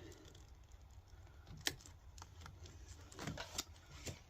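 Faint clicks and rustling of a plastic wire tie being worked with cutters, with one sharp snap about a second and a half in as the tie is cut, and a few more clicks a couple of seconds later.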